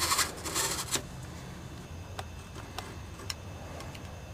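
Box-cutter blade scraping and slicing through a cracked rubber exhaust hanger for about a second, then a few faint sharp clicks.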